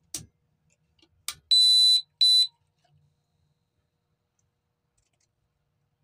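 CO2 alarm's sounder giving two shrill beeps, a half-second one and then a shorter one, with two faint clicks just before them.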